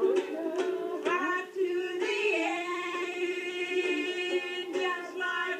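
Voices singing a ukulele medley over ukulele strumming, with one long held sung note from about two seconds in until near the end.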